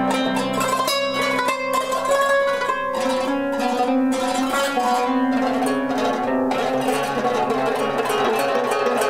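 Qanun played solo, its strings plucked with finger picks on both hands in a melodic passage of ringing notes. From about five seconds in the notes come much faster, in a dense, rapid run.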